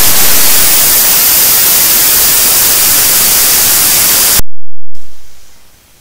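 Loud, steady static hiss across the whole range, like a recording fault, that cuts off suddenly about four and a half seconds in, leaving only faint background hiss.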